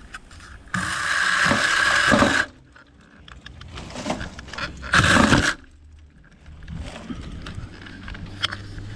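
Mini electric chainsaw revved in two bursts, a longer one of under two seconds near the start and a shorter one about halfway, whining as it cuts through vine and brush branches.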